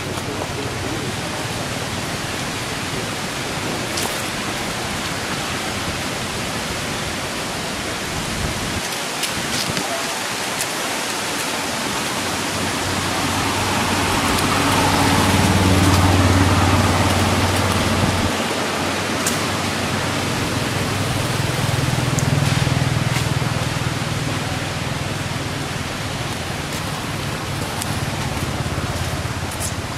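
Steady hiss of light rain falling. A low drone swells up about twelve seconds in, fades about six seconds later, and returns for several seconds near the end.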